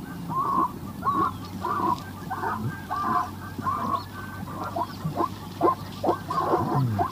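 A herd of wildebeest (gnu) calling: many short nasal honking grunts, about two a second, overlapping and coming quicker in the second half.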